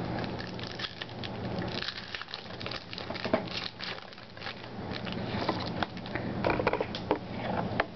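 Foil trading-card pack wrapper crinkling and the cards being handled and shuffled by hand: an irregular run of rustles and light clicks, busiest in the second half.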